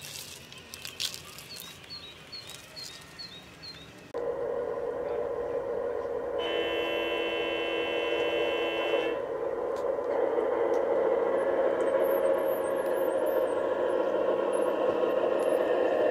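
Garden-railway model of a Rhaetian Railway shunting tractor running along its track, a steady motor and wheel hum that starts abruptly about four seconds in and grows slightly louder. For about three seconds in the middle a steady horn sounds over it. Before the hum, only faint clicks.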